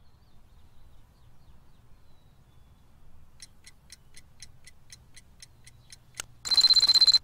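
Egg-shaped wind-up alarm clock ticking about four times a second, then a click and its bell ringing loudly near the end, cut off suddenly, over a low steady hum.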